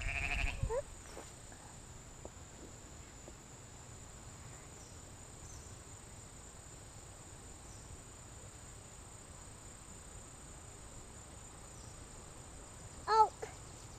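A sheep bleats once, loudly, near the end, over a faint, steady, high-pitched insect hum in an open field.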